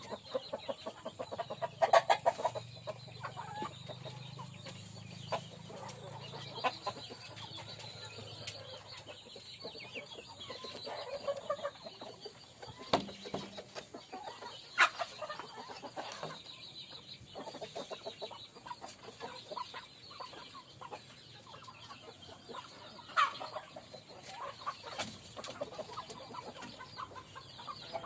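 Kampung (Indonesian native) chickens clucking in a coop: many short calls scattered throughout, with a few louder calls standing out.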